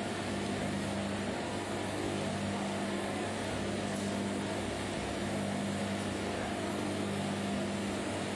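Coffee roaster's cooling tray running: a rotating stirring arm sweeps freshly roasted beans around the tray, a steady rustle of beans over a constant motor hum.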